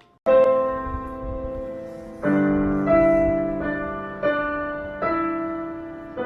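Piano music: a slow run of chords, each struck and left to ring and fade before the next.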